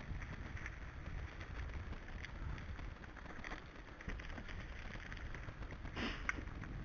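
Wind rushing over the microphone and tyres rolling on a loose gravel track as a bike coasts along, with a brief rattle about six seconds in.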